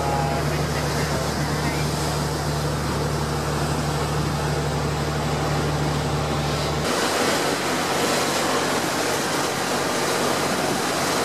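Speedboat under way: the engine's steady low hum under rushing water and wind on the microphone. About seven seconds in the hum cuts out abruptly, leaving the rush of water and wind.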